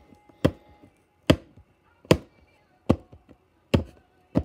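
Six sharp, evenly spaced taps, about one every 0.8 seconds, from fingers tapping on a cardboard product box.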